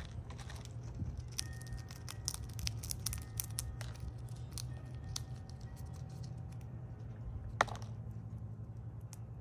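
A squirrel gnawing and cracking its food: a dense run of quick, crisp clicks and cracks in the first half, scattered clicks after, and one sharper crack near the end, over a steady low hum.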